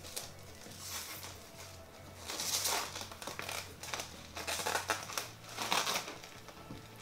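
Plastic shrink-wrap crinkling as it is peeled off a new paperback book, with three louder bursts in the second half, over quiet background music.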